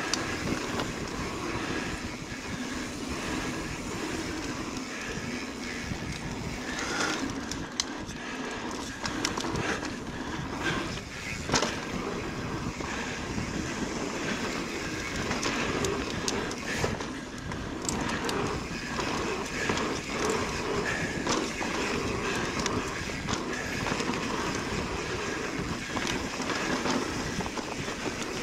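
Mountain bike descending a dirt trail: knobby tyres rolling over the dirt, with the chain and frame rattling and frequent knocks over bumps and rocks.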